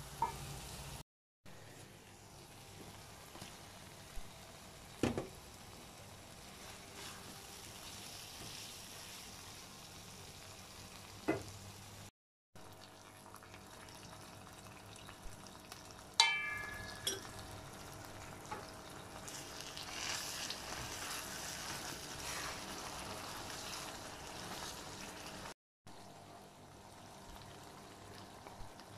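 Chilli spice paste (rempah) frying and bubbling in a wok with a steady sizzle while it is stirred. A few short knocks of the utensil on the pan, and one ringing metal clink about halfway through.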